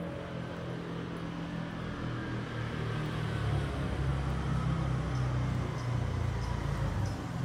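A car engine running close by, its low hum growing louder from about three seconds in as the vehicle draws near.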